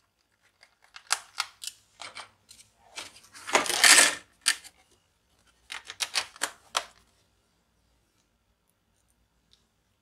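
Plastic laptop bottom cover being fitted back over the drive bay: scattered clicks, a louder scraping slide about four seconds in, then a quick run of clicks near the seven-second mark as the cover snaps into place.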